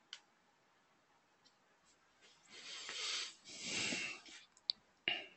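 A person's breath, two noisy swells close to the microphone in the middle, with sharp computer-mouse clicks once near the start and twice near the end.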